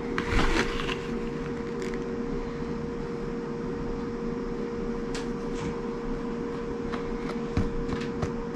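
Coconut coir crumbled by hand into a plastic box: a brief rustle about half a second in, then a few light ticks of falling bits, over a steady hum.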